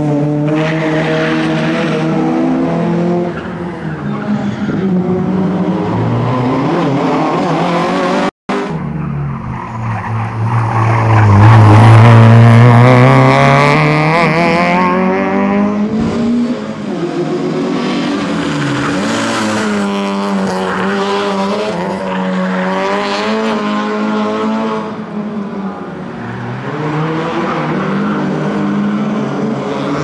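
Citroen Saxo rally car's engine revving hard and lifting off again and again as it is driven through the course, with tyres squealing on the tarmac. The engine note rises and falls many times and is loudest about 11 to 14 seconds in, where it climbs as the car comes close. The sound cuts out for a moment about eight seconds in.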